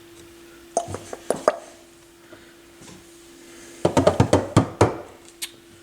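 Sharp clicks and clatters of small tools and parts being handled on a workbench: a few separate clicks about a second in, then a quick run of clattering about four seconds in. A faint steady hum sits underneath.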